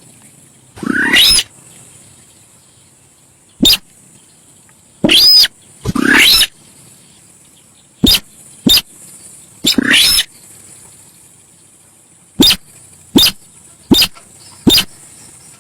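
Sintar sawah bird calling in an irregular series: a few harsh, upward-sweeping squeals about half a second long, mixed with short sharp single notes, with quiet gaps between calls.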